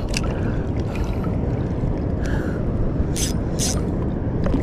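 Strong sea wind buffeting the microphone over the wash of seawater around a chest-deep wader, with a few short hisses in the second half.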